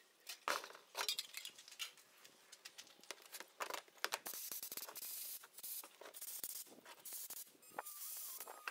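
Compressed-air blow gun hissing in repeated blasts, short ones at first, then longer ones. Near the end a small rotary tool starts with a faint steady whine.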